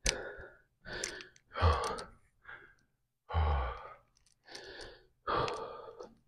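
A man breathing hard, catching his breath after a heavy set: about eight loud, noisy breaths in and out with short gaps. The two strongest come about one and a half and three and a half seconds in.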